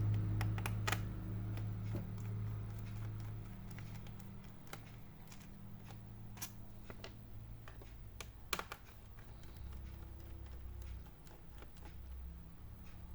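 Irregular light clicks and taps of a screwdriver and small screws against the plastic underside of an Asus X452E laptop as the two screws of its service cover are undone, with a slightly louder clatter about eight and a half seconds in. A low steady hum sits underneath and fades after the first few seconds.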